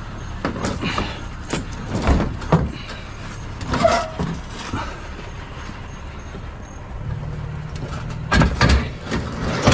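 Scrap being shifted and fitted into a vehicle: a series of knocks and clatters, the loudest about two seconds in, four seconds in and near the end, over a steady low hum.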